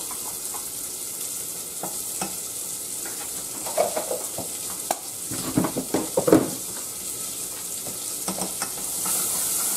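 Chopped onion frying in bacon grease in a saucepan: a steady sizzle. A spoon scrapes and knocks in the pan as butter is added and stirred in, loudest from about four to six and a half seconds in.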